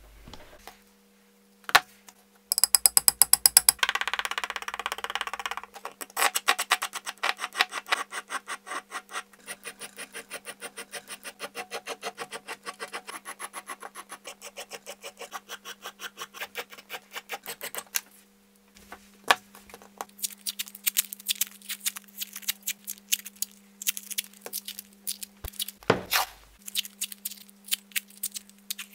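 Steel file rubbing the metal pins flush on a deer-antler knife handle: a long run of quick, even strokes, ringing and loudest at first. After a short pause come irregular scrapes and clicks, with a single thump near the end.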